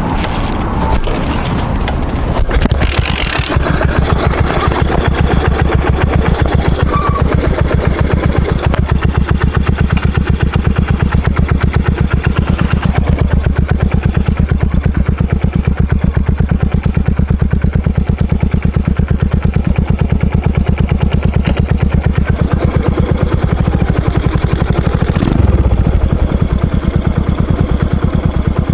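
Yamaha SR400 single-cylinder four-stroke exhaust. The engine is kick-started about three seconds in, then idles with an even, steady thump. Near the end it revs briefly as the bike pulls away.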